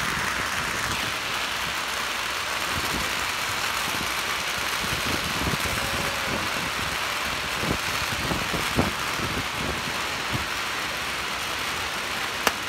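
A long string of firecrackers going off in a dense, unbroken crackle, with a few sharper bangs standing out in the second half.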